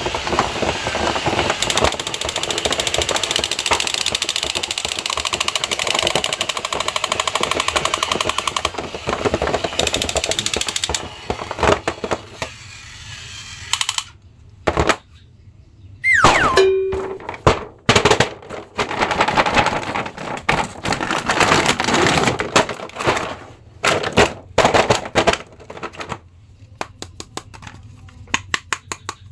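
Battery-operated crawling soldier toy figures playing their electronic machine-gun sound effect, a rapid rattle for the first ten seconds or so, then in broken bursts with gaps. A short falling tone about sixteen seconds in, and scattered clicks of plastic being handled near the end.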